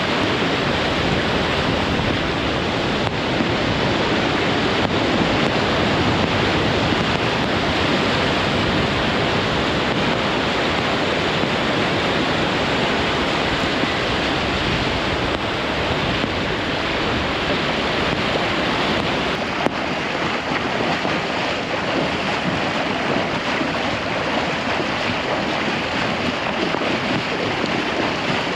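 Steady rushing wash of floodwater and storm noise, with wind buffeting the microphone.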